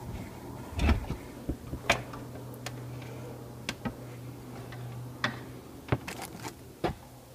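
Scattered plastic clicks and knocks, about eight in all, as the body of a Husky Storm central vacuum unit is handled and seated onto its wall mounting bracket.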